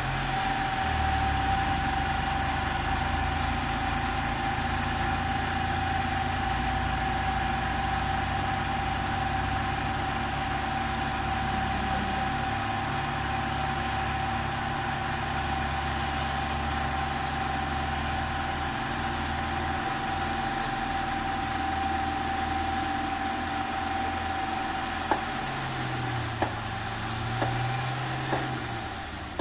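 Tata tipper truck's diesel engine running steadily with a steady high whine while the hydraulic hoist raises the loaded body to tip out soil. A few sharp knocks near the end.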